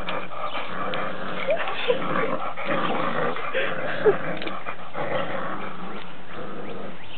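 English springer spaniel puppies growling in rough play, with a few short, high yips.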